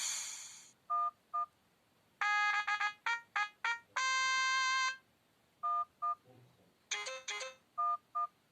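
Sony Ericsson W910i mobile phone's built-in sound effects: a series of short electronic beeps and chimes. They are paired two-note blips, a quick run of falling notes, a held chord lasting about a second in the middle, and another burst of short notes near the end.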